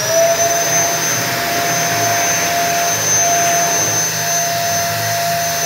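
Wall-mounted electric hand dryer running at full speed: a steady high motor whine over a rush of air. Right at the end it switches off and the whine starts to drop as the motor spins down.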